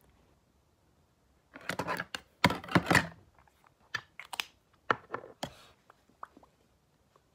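Close-up handling sounds from a lipstick and a compact mirror: a stretch of scratching and rubbing about two seconds in, then a series of sharp plastic clicks as the lipstick is twisted and capped.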